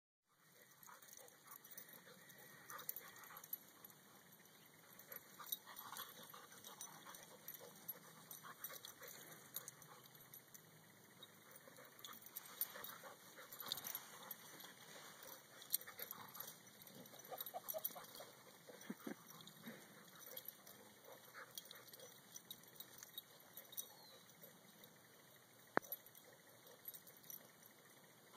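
Faint, scattered sounds of a Springer Spaniel playing rough with a rooster on grass: short scuffles and knocks, a few brief pitched whines, and one sharp click near the end.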